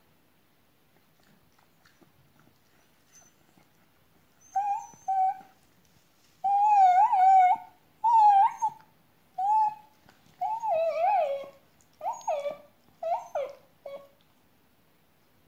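Small dog whining and crying in a string of about nine wavering, pitched cries beginning about four seconds in, some short and some drawn out. It is the distress of a dog left behind when its owner has gone out.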